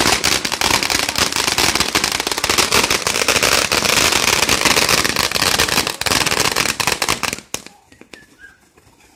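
Ground fountain firework spraying sparks with a loud, dense crackling. The crackling drops off sharply about seven and a half seconds in.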